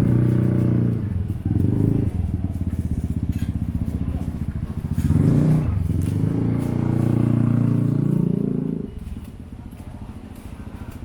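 Small motorcycle engines running close by: one goes past at the start, and another rises in pitch and passes about five seconds in, then the sound drops away near the end.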